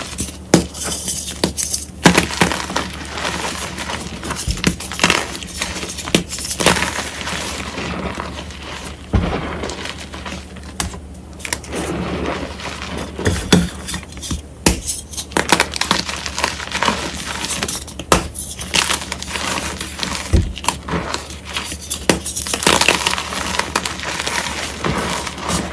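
Reformed gym chalk hearts crushed and crumbled by bare hands: dense, irregular crunching and crackling, with sharper snaps as chunks break apart and crumbs grind into the powder.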